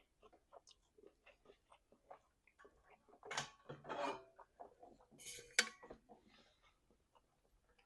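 Wet chewing and lip-smacking while eating meat: a run of soft mouth clicks, with two louder smacking bursts a little past the middle.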